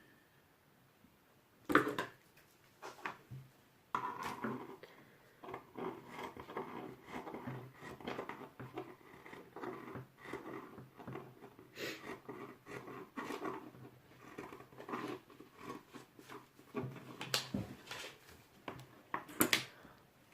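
Scissors cutting through throw-blanket fabric: a long run of irregular snips with the cloth rustling, and a few sharper clicks about two seconds in and near the end.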